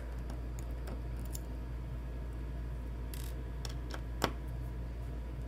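Small scattered clicks and taps of a Torx screwdriver working the T8 hinge screws on a MacBook Pro's aluminium body, with one sharper click about four seconds in.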